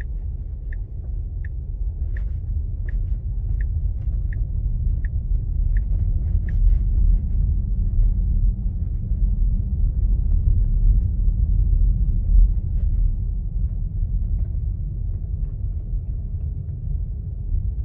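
Steady low road and tyre rumble inside the cabin of a moving Tesla Model 3 electric car. For the first six seconds or so the turn-signal indicator ticks evenly, about three ticks every two seconds, then stops.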